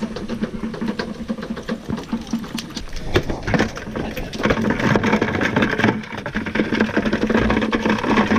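A bonita (little tunny) beating its tail rapidly against the inside of a plastic bucket: a fast, rattling run of knocks that gets louder about halfway through.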